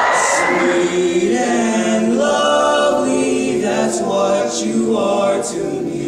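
Teenage boys' barbershop quartet singing a cappella in four-part close harmony, holding sustained chords that shift every second or so.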